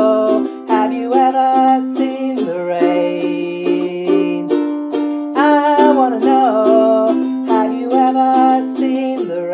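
Ukulele strummed in a steady rhythm of chords, with a woman's voice singing along in phrases.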